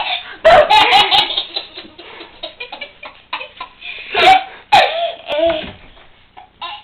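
A toddler laughing hard in bursts of high-pitched belly laughs, loudest about half a second in and again about four seconds in, with quieter giggles between.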